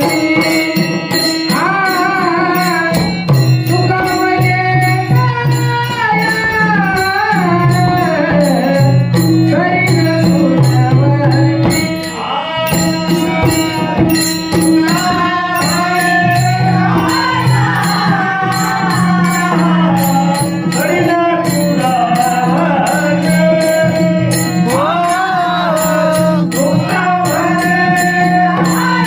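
Marathi devotional Harijagar song: a male singer's voice gliding through ornamented phrases over a harmonium's steady drone, with a regular beat of rhythmic percussion.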